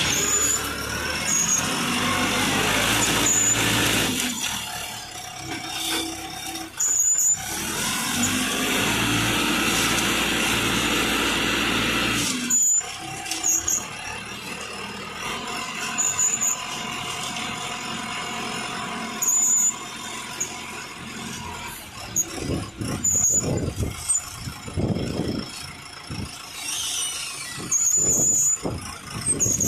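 Self-loading concrete mixer working: its engine runs and revs up and down several times. Short loud bursts of hiss-like noise cut in now and then.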